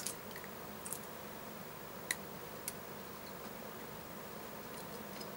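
Hands handling and rubbing a wax candle core in a paper tissue: a few light, separate clicks and soft handling noise over faint room hiss.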